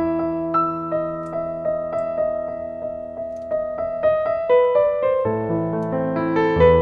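Background piano music: a gentle melody of sustained notes and chords. The low bass notes drop away after about half a second and come back in about five seconds in.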